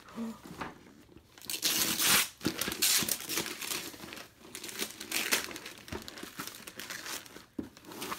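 Wrapping paper being torn and crumpled by hand as a present is unwrapped: irregular bursts of ripping and rustling, loudest about two to three seconds in.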